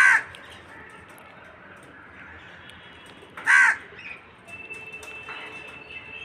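A crow cawing twice: two short, loud, harsh calls about three and a half seconds apart. A faint steady high tone comes in near the end.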